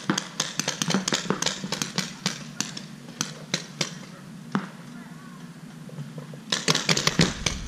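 Paintball markers firing: sharp compressed-air pops, several a second at times, with a quieter gap in the middle and a dense burst near the end.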